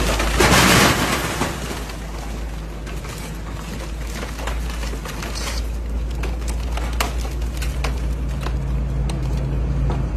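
Caterpillar hydraulic excavator demolishing a concrete-block building: a loud crash of breaking masonry and falling rubble about half a second in, then the diesel engine running steadily under scattered sharp knocks of the bucket striking concrete.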